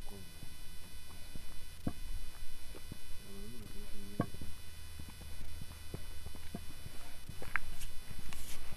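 Footsteps on a dirt yard: irregular short steps and knocks over a low steady hum, with a brief faint voice about halfway through.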